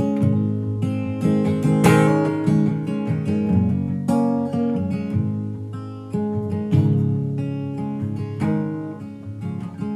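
Acoustic guitar strummed in an instrumental break of a song, chords struck every second or two and left to ring and fade.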